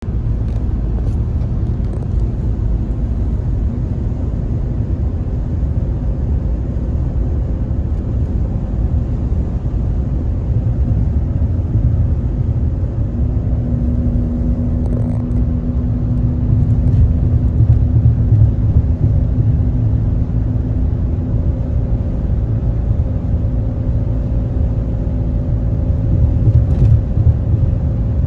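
Steady low rumble of a car cruising at highway speed, heard from inside the cabin, with tyre and road noise to the fore. A faint steady hum joins about halfway through, and a higher one later.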